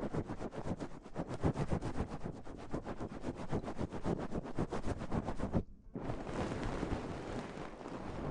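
Close-miked ASMR trigger sounds: fast, even tapping, about eight to ten taps a second, that stops near the six-second mark. After a brief break it gives way to a steady rustling hiss.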